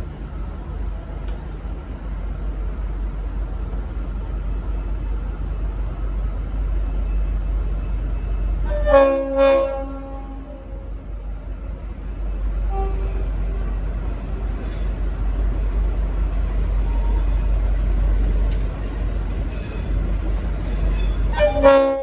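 V/Line N class diesel locomotive arriving, its engine a steady low rumble throughout. Its Leslie RS5T multi-chime horn gives a short double blast about nine seconds in and another short blast right at the end. There are brief high hissing sounds shortly before the last blast.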